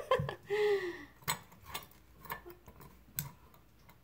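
A few separate light clicks and taps from metal measuring cups, joined together on a ring, being handled and set down.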